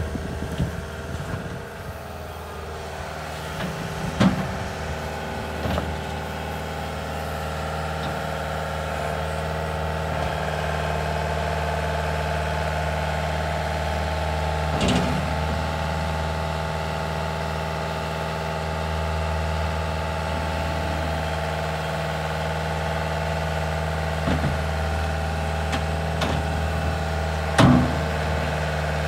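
Bobcat S300 skid steer's diesel engine running steadily, with a few sharp metallic knocks now and then, the loudest near the end.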